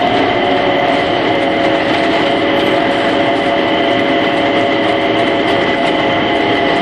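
Changi Airport Skytrain, a rubber-tyred automated people mover, running along its guideway, heard from inside the car: a steady running rumble with several steady whining tones from the drive.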